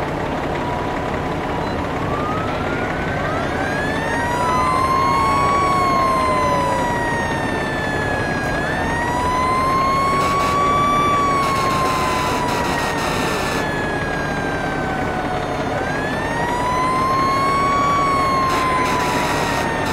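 Fire engine siren wailing, its pitch slowly rising and falling about every six to seven seconds. A second siren sweeps up and down across it a few seconds in, and harsher blasts sound around twelve seconds in and near the end.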